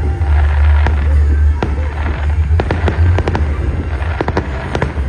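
Fireworks going off: a rapid, irregular run of sharp bangs and crackling pops, growing denser in the second half, over a steady low rumble.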